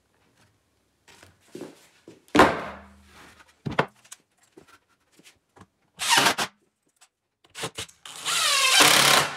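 Workshop tool work: a sharp knock about two seconds in, then short separate bursts of a power tool. The last burst, near the end, runs about a second with its pitch sliding.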